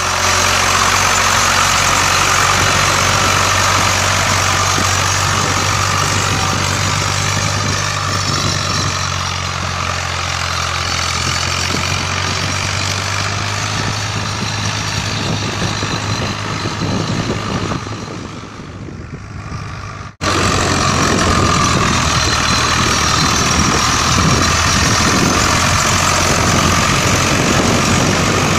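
Swaraj 735 tractor's three-cylinder diesel engine running steadily under load while it drags a cultivator through a flooded rice paddy for puddling. The sound sags about 18 seconds in, breaks off abruptly near 20 seconds, then comes straight back at full level.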